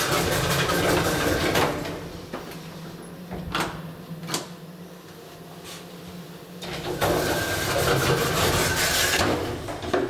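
1985 Hopmann elevator's automatic doors sliding open, standing open for several seconds with a few light clicks, then sliding shut again near the end and closing with a knock.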